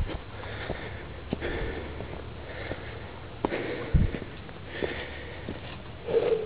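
A person breathing hard in quick, regular breaths, about one every second or so, while climbing a stone-paved path. Footsteps click and scuff on the stones and dry leaves.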